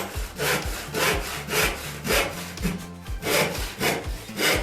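Handsaw cutting a piece of timber to size, back-and-forth strokes at about two a second, each one a rasp.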